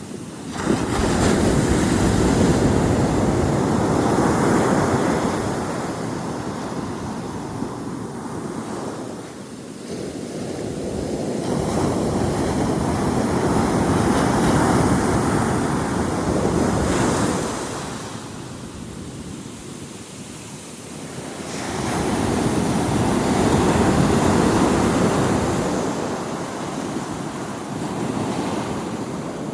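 Ocean surf breaking on a beach: three waves build, crash and wash back, one about every ten seconds.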